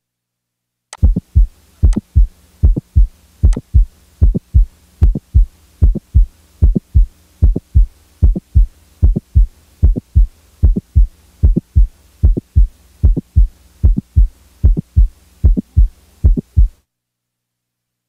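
Heart sounds with a mid-systolic click: a steady run of short lub-dub beats with an extra click between them, the click being the sign of mitral valve prolapse. The beats start about a second in and stop about a second before the end.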